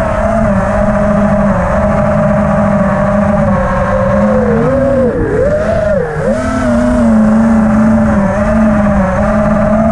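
FPV freestyle quadcopter's brushless motors and propellers whining, the pitch wavering with throttle and dipping sharply twice around the middle before rising again.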